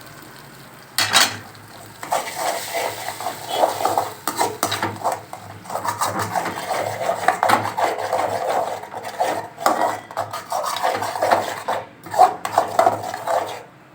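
Spatula stirring and scraping eggs and onions around a kadai (Indian wok) as they scramble: a knock about a second in, then a run of quick, uneven scraping strokes.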